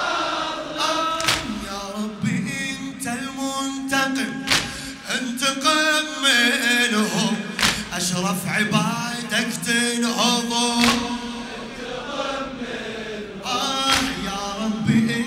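A male radood chants a Shia Muharram latmiyya elegy in Arabic, unaccompanied, his voice sliding and ornamenting through long melismatic lines. Sharp strikes from the congregation's chest-beating (latm) punctuate the chant here and there.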